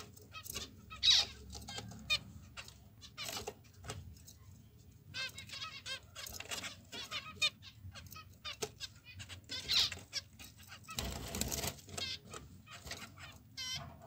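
Small cage birds chirping, with short calls scattered throughout and a louder cluster of calls and rustling about eleven seconds in.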